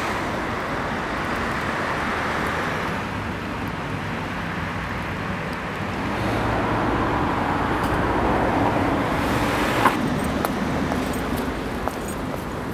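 Steady road traffic noise from cars, a continuous hum that grows somewhat louder around the middle, with a sharp tap about ten seconds in.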